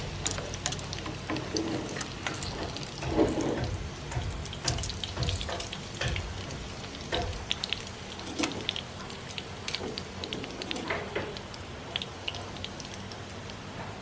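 Shallots and garlic frying in hot oil: a steady sizzle with many small crackling pops, and metal tongs and a perforated skimmer scraping and stirring in the pan as the pieces are lifted out.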